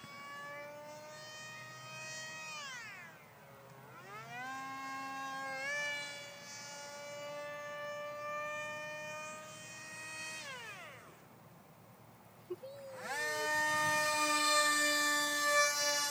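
Electric motor and propeller of a radio-controlled model plane whining overhead. The pitch drops and climbs back about three seconds in and again about eleven seconds in, as the throttle is cut and reopened. It is loudest near the end.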